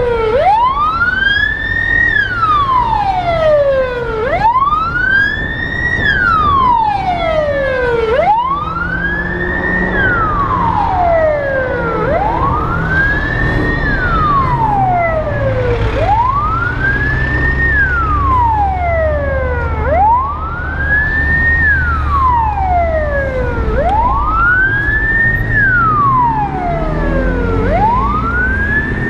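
Emergency vehicle siren wailing, rising and falling slowly in pitch about once every four seconds, over a low rumble.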